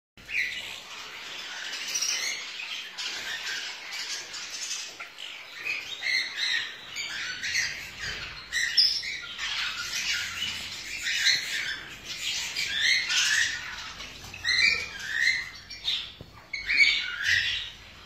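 Several caged parakeets chirping and squawking, short high calls repeating over and over.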